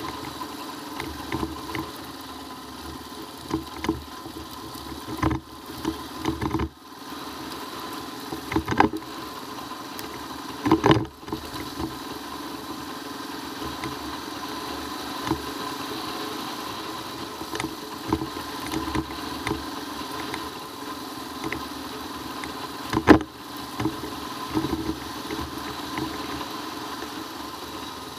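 Royal Enfield Himalayan's single-cylinder engine running steadily while the motorcycle rides on a dirt road. A handful of sharp knocks cut through it, the loudest about 23 seconds in.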